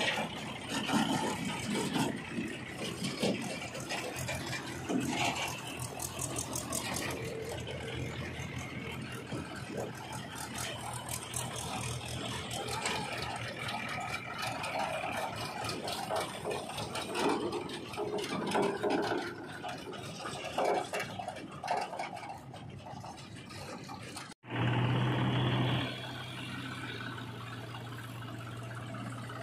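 Diesel farm tractors drive past towing steel trailers, engines running under a steady rattle from the trailers. Near the end the sound cuts abruptly to a steady low diesel engine idle.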